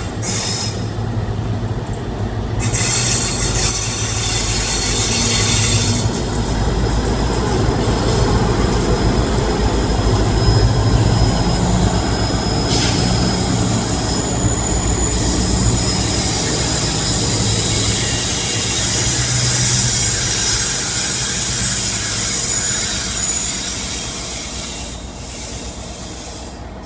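GBRf Class 60 diesel freight locomotive passing at low speed, its eight-cylinder engine running, followed by a long rake of hopper wagons rolling by. From about halfway through, high-pitched wheel squeal rides over the rumble of the wagons.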